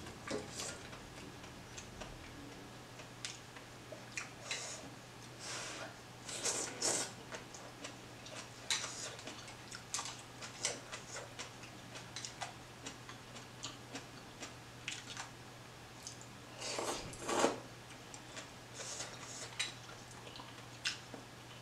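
Close-up eating sounds of a person eating noodle soup with chopsticks: many soft clicks and mouth sounds from chewing and chopsticks touching the steel pot, with a couple of longer hissing slurps of noodles, about six seconds in and again about seventeen seconds in. A faint steady low hum runs underneath.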